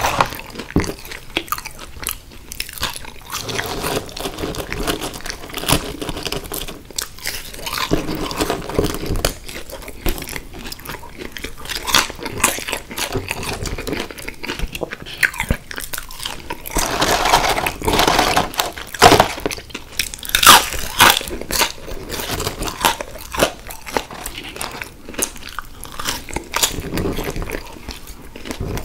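A person chewing and biting McDonald's french fries close to the microphone, in a run of short crunching bites. The loudest bites come about two-thirds of the way through.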